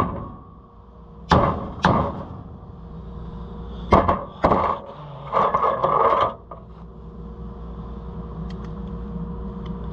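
Hammer blows on a steel punch, driving a stuck pin out of the combine's head: five sharp strikes spaced irregularly, then a second or so of rapid clattering metal about five seconds in.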